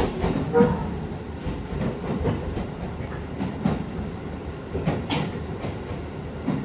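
Keisei 3050-series electric train running, heard from inside the car: a steady rumble with irregular clacks of the wheels over rail joints.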